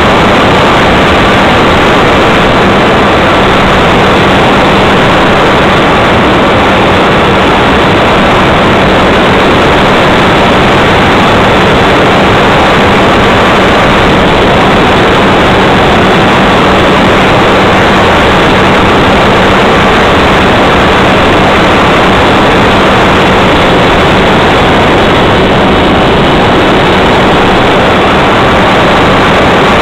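RC model airplane's motor and propeller running steadily in flight, heard from a camera mounted on the plane, mixed with heavy wind rush on its microphone. The sound is loud and unbroken, with a steady low drone under the rush.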